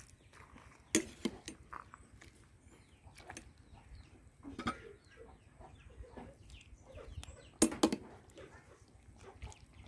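A metal ladle clinks sharply against a ceramic plate and the cooking pot a few times while food is served, loudest about a second in and twice close together near the end. Chickens cluck in the background.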